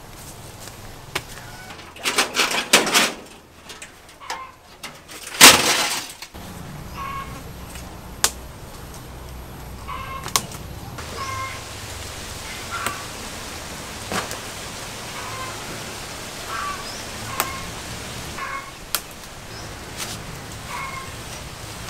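Rustling and handling noise from climbing a papaya tree, with a loud burst about five seconds in. A bird then repeats a short chirping call every second or two, with a few sharp clicks in between.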